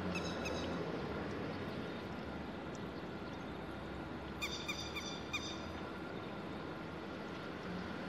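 Grey-headed lapwing giving sharp, repeated kik calls: a quick run of about four notes at the start, and about five louder notes about four and a half seconds in, over a steady low hum. The calls are the species' alarm, which it gives when people come near its chicks.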